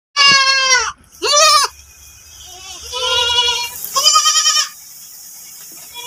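Goats bleating: about four wavering calls, two close together in the first second and a half and two more around three and four seconds in.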